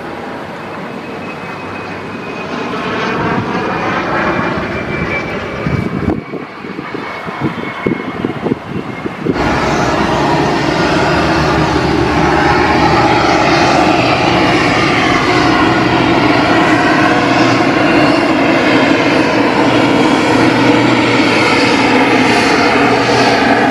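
A rear-engined twin jet on landing approach, its engine whine slowly falling in pitch. About nine seconds in it gives way abruptly to a Daher TBM single-engine turboprop taxiing close by, its turbine and propeller running steadily and louder.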